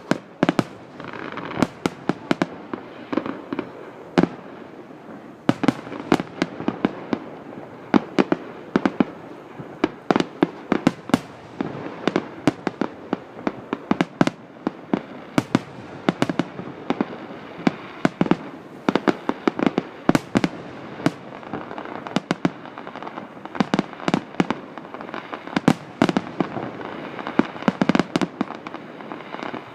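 Aerial fireworks show: many sharp shell bursts and bangs at irregular intervals, often several a second, with continuous noise between them.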